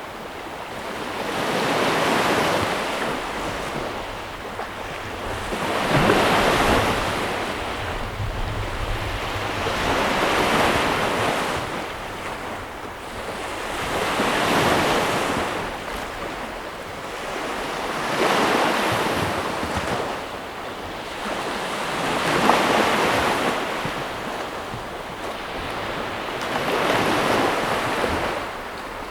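Ocean waves breaking and washing on a shore, rising and falling about every four seconds, with a wind-like hiss between swells.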